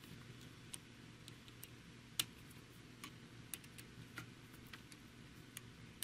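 Faint, irregular clicks of a screwdriver tightening small screws on a graphics-card fan mount, about a dozen sharp ticks with the loudest about two seconds in, over a low steady hum.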